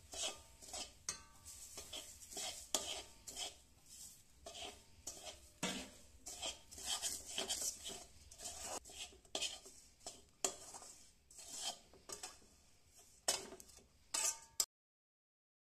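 Metal spatula scraping and clattering against a metal wok in quick, irregular strokes as sesame seeds are stirred and pushed around the pan. The sound stops abruptly near the end.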